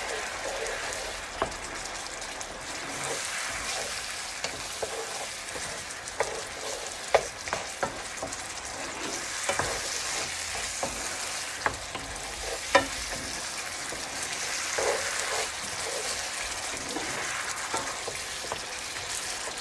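Tomato sauce with carrots and potatoes sizzling in a non-stick frying pan while a wooden spatula stirs it, with a few sharp clicks as the spatula scrapes and knocks against the pan.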